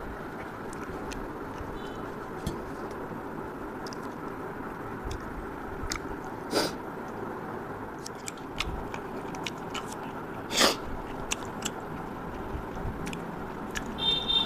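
Close-up eating sounds of a person chewing and picking at fish with his fingers: soft wet clicks and mouth noises over a steady background hiss, with two louder smacks about six and a half and ten and a half seconds in.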